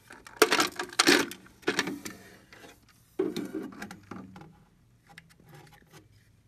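A candy vending machine's plastic dispensing mechanism, jammed with fused candy, being worked loose and pulled out of the machine housing by hand: several bursts of plastic clattering and scraping in the first four seconds, then a few light clicks.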